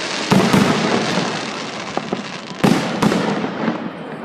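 Fireworks display: several sharp shell bursts, two about a second in and two more near the end, each followed by rumbling echo and crackle.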